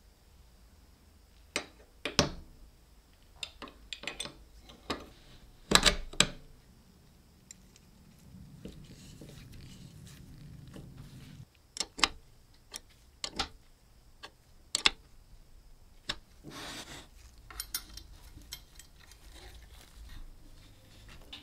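Gold-plated steel nutcracker parts handled and fitted onto a walnut base: scattered sharp metal clicks and taps, the loudest a few knocks about six seconds in, with a stretch of soft rubbing midway and a run of small clicks near the end as the coil spring is set in place.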